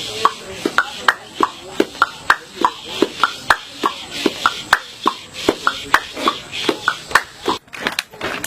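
A group clapping a steady beat together, about three claps a second, as body percussion.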